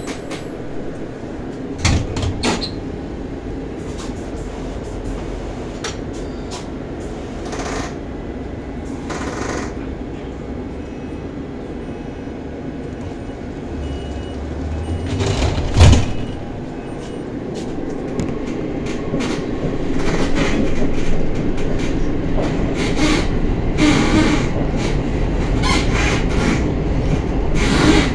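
Tram running, heard from inside the passenger cabin: a steady rumble, a single loud thump about halfway through, then louder running with quick wheel clicks over the rails in the last third.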